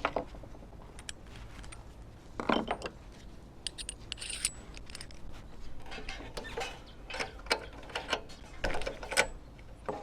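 Small metal hand tools being handled, with scattered clicks and clinks, a louder clank about two and a half seconds in and a run of clicks in the second half.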